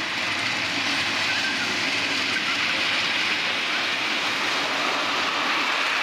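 Miniature steam locomotive hauling a passenger car along the track, running steadily as it approaches.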